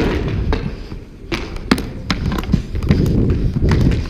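Roller hockey stick knocking a ball in a series of sharp, irregular clicks while stickhandling, over the steady low rumble of skate wheels rolling on a wooden rink floor.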